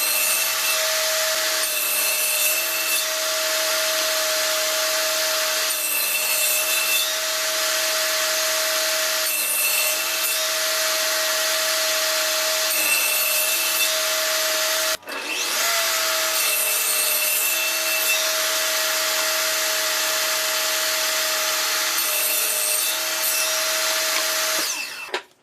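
Table saw running steadily at full speed, with its pitch holding level, while wood is fed through it; the cutting noise surges every few seconds as each pass bites into the wood. The sound drops out for a moment about two-thirds of the way through and stops abruptly near the end.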